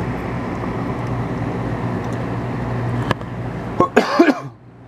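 A steady hum with a low drone under a rushing background noise. A sharp click about three seconds in cuts the drone off, and a brief, louder handling or voice-like sound near the end is followed by a drop to quieter noise.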